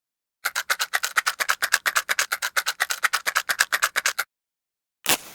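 A box of matches shaken, the matches rattling in a fast, even rhythm of about ten a second for nearly four seconds. Then, about five seconds in, a match is struck with one sharp scrape and its head flares into a steady hiss.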